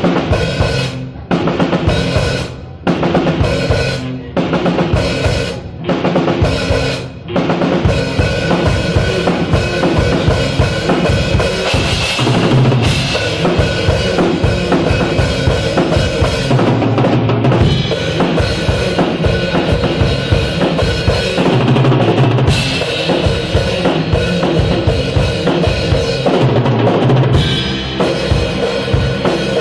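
Rock band playing an instrumental passage led by a drum kit with bass drum and snare. It opens with short stop-start hits separated by brief gaps, then about seven seconds in the full band plays on continuously.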